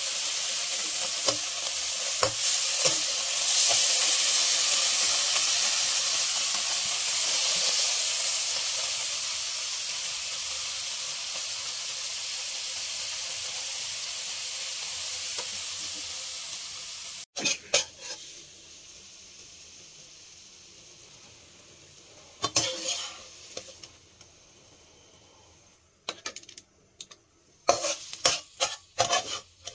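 Beef chili sambal sizzling in oil in a wok while a metal slotted spatula stirs it, with scrapes and clicks against the pan. About 17 seconds in the sizzle cuts off suddenly. After that only faint, scattered spatula scrapes and knocks on the wok are left, in short bunches near the end.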